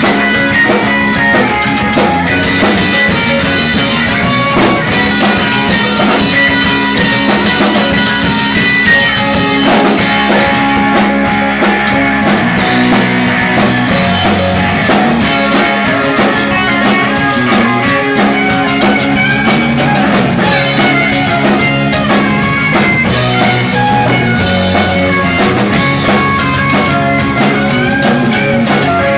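Live rock band playing an instrumental jam: electric guitar and electric bass over a drum kit and keyboard.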